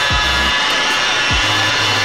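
Electronic dance track with deep kick drums that fall in pitch and held bass notes. Under it runs the steady whine of a rotary polisher buffing car paint with a foam pad.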